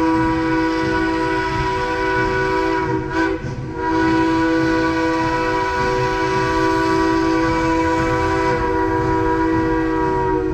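Narrow-gauge steam locomotive's whistle sounding a chord of several steady notes at once: one blast, a brief break about three seconds in, then a long blast that cuts off at the end.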